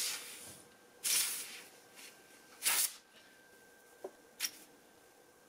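Compressed air hissing from a blow gun in several short blasts into the bore of a seized Brembo brake master cylinder, muffled under a shop towel, in an attempt to blow out the frozen piston. The piston does not budge.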